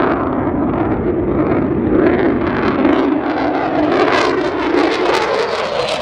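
Fighter jet engine roaring loudly and steadily during a takeoff; a tone within the roar slides down in pitch near the end.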